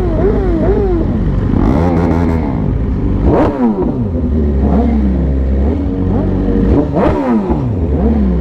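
Several superbike engines revved at once, their pitch rising and falling in quick overlapping throttle blips over a steady low rumble. Two sharp high revs stand out, about three and a half and seven seconds in.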